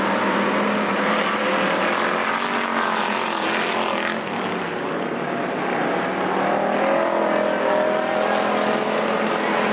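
Several pure stock race cars' engines running hard around a dirt oval, their pitches rising and falling as they accelerate through the turns and come by.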